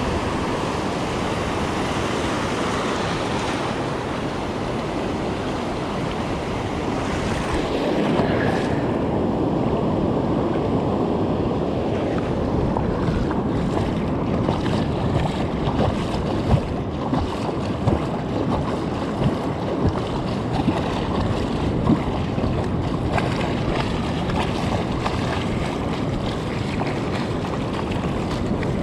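Ocean surf washing onto a beach, with wind buffeting the microphone. The surf swells louder about eight seconds in, and scattered light clicks and taps come through in the second half.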